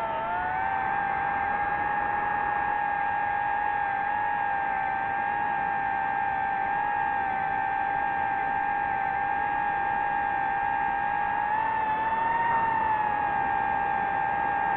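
DJI FPV drone's motors and propellers whining steadily over a rushing noise. The pitch dips briefly at the start and wavers up and down about twelve seconds in.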